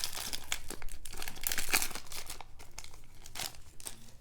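Foil wrapper of a 2018 Bowman baseball card pack crinkling in irregular bursts as it is opened and handled.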